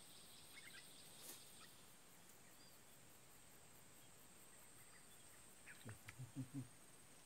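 Near silence: a faint, steady, high-pitched insect drone, with a few faint ticks and a quick run of four or five low pulses about six seconds in.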